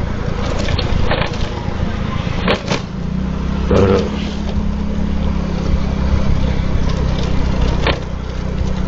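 Motor scooter engine running at a steady speed while riding, with wind noise on the microphone. A few short knocks come through, the clearest about two and a half and four seconds in.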